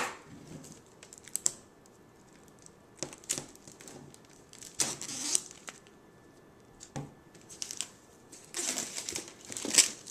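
Clear plastic packaging and a hard-shell plastic laptop case being handled, crinkling and rustling in irregular bursts. The longest and loudest bursts come near the end.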